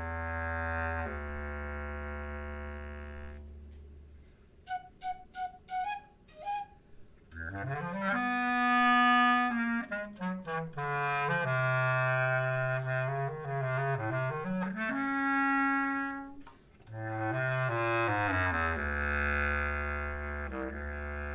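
Flute and clarinet playing a contemporary chamber duet. Long held notes fade out about four seconds in, a string of short detached notes follows, then both instruments come back louder with sliding, rising and falling lines and held notes.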